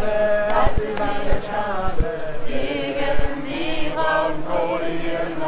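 A crowd of marching protesters chanting together in sung unison, with a few low thumps underneath.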